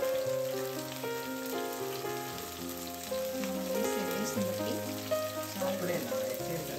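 Chopped tomatoes, onions and green chillies sizzling in hot oil in a kadai, with background music of held notes and a wavering melody playing over it.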